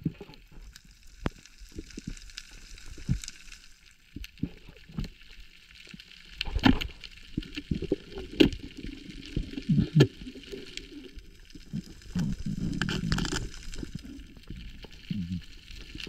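Underwater recording from a camera housing: scattered sharp clicks and knocks over a steady hiss of water noise, with louder muffled bursts of water disturbance in the second half, as when an octopus is being grabbed among the weed.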